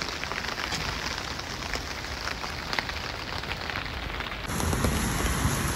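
Steady rain falling, an even hiss dotted with many small drop ticks, which grows a little louder about four and a half seconds in.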